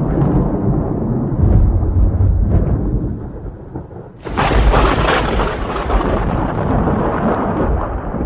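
Thunder: low rolling rumble that dies down, then a sharp thunderclap about four seconds in, followed by a long rumble that slowly fades.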